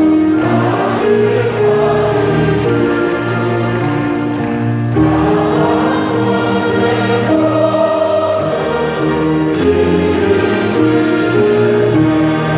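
Many voices singing a hymn together in slow, held notes that change pitch every second or two.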